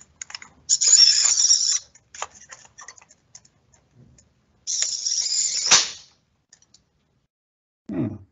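Servo motor of a food-pellet dispenser running twice for about a second each: once as it drives the arm forward, and again as it brings the arm back, ending in a sharp click. A short low thump comes near the end.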